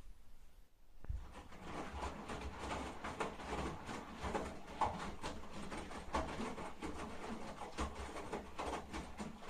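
Front-loading washing machine in its rinse cycle: the drum turns, tumbling wet laundry that sloshes and splashes in the water, over a steady low motor hum. The tumbling starts about a second in.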